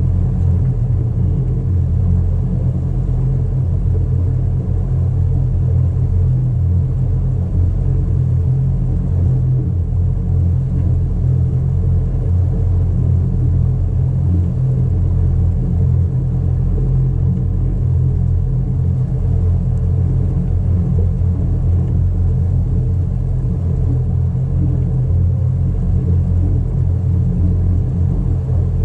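Tow boat's engines running with a steady, loud, low drone that holds an even pitch throughout.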